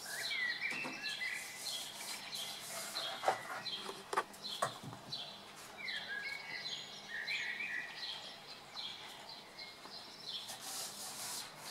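Small birds chirping over and over in short repeated calls, with a few sharp clicks about three to five seconds in.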